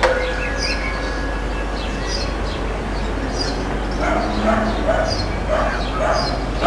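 Short, high, falling animal calls repeating about every two-thirds of a second, joined in the second half by lower short calls, over a steady low hum.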